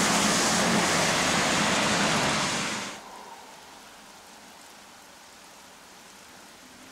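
Steady rushing noise of heavy rain, loud for the first three seconds, then dropping suddenly to a softer, even hiss of falling rain.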